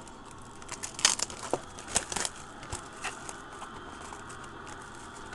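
Plastic shrink wrap crinkling and tearing as it is peeled off a sealed trading-card box, in faint scattered crackles that bunch up between one and two and a half seconds in, then thin out.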